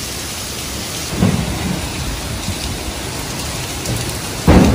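Heavy hurricane rain pouring steadily. There is a dull low thud about a second in and a loud, sudden deep boom near the end.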